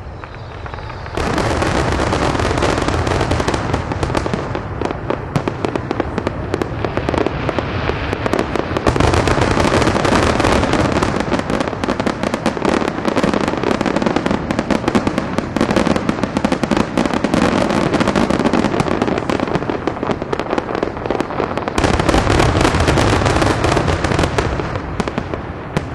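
Fireworks going off in a dense, continuous barrage of rapid crackling bangs, starting about a second in and dying away near the end.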